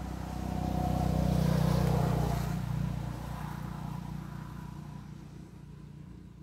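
A motor vehicle's engine passing by, growing louder over the first two seconds and then fading away.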